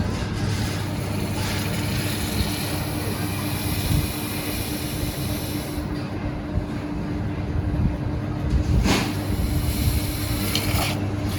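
An electric power tool's motor running steadily with a constant hum and a rasping noise over it, rising briefly near the end.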